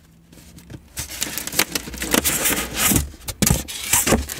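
Cardboard boxes and the packed parts inside them being rummaged through and handled: irregular scraping, rustling and knocking that starts about a second in.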